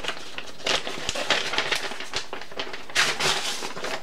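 Rustling and light clicks of things being handled, in several short bursts, the loudest about three seconds in.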